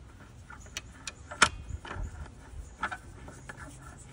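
Sharp metallic clicks and clinks of a wrench turning in the arbor bolt of a DeWalt 60V cordless circular saw as the blade is tightened down with the saw locked. The clicks come irregularly, the loudest about one and a half seconds in.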